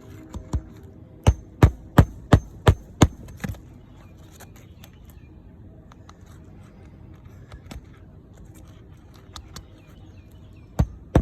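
Hammer blows at about three a second: a run of about seven strikes, then a few lighter taps, and another run starting near the end.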